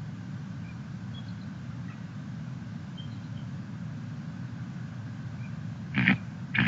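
Steady low hum and hiss of an outdoor nest-cam microphone at night, with faint scattered high chirps. Near the end come two short, loud, sharp high calls, the start of a series.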